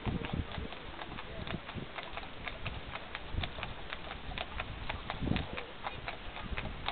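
Hooves of harness horses striking the ground in a quick, irregular run of clicks.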